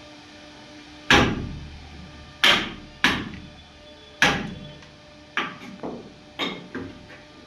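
Hammer blows on a wooden table part: about eight irregular strikes, the first four heaviest and the later ones lighter and quicker.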